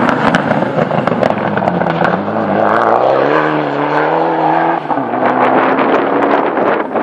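Mitsubishi Lancer Evolution rally car's turbocharged four-cylinder engine at full throttle, passing close and pulling away. The engine note climbs for a couple of seconds, then drops at a gear change about five seconds in, with many sharp pops and cracks throughout.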